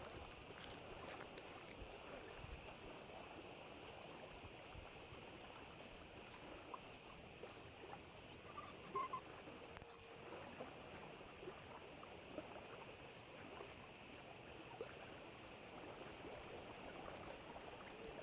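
Faint, steady lakeside background noise, with a brief faint chirp about nine seconds in.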